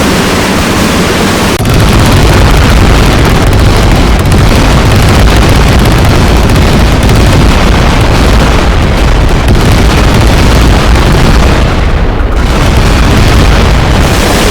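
Helicopter running very close and very loud, a dense steady noise that steps up louder about one and a half seconds in, heavy enough to overload the recording.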